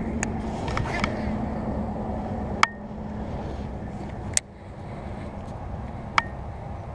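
Baitcasting reel being cranked, a steady low whirr over rustle at the microphone, stopping about four seconds in. Three sharp clicks with a brief high ring, roughly two seconds apart.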